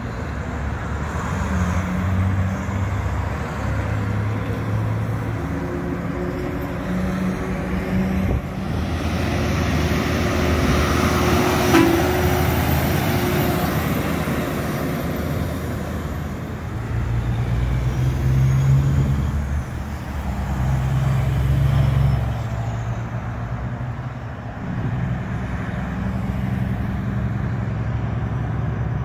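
Heavy diesel trucks and cars passing on a multi-lane highway: low engine rumble and tyre noise that swell and ease as each vehicle goes by, with a short sharp sound about twelve seconds in.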